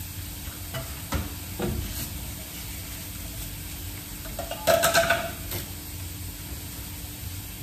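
Shredded-potato galette sizzling steadily in olive oil in a frying pan. A few light knife taps on a wooden cutting board come in the first two seconds, and about five seconds in there is a short, louder rustle of kitchen paper being handled.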